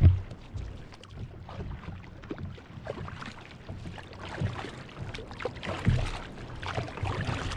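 Water splashing and sloshing around a kayak as it is paddled, with irregular small splashes over a low rumble.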